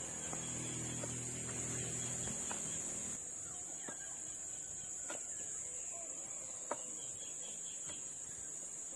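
A steady, high-pitched drone of insects such as crickets, with a low hum that stops about three seconds in and a few sharp knocks after it.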